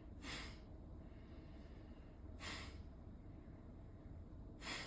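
Three short, forceful exhalations through the nose, about two seconds apart: Kapalabhati breathing, each exhale pushed out by a sharp contraction of the abdominal muscles, with a quiet passive inhale in between.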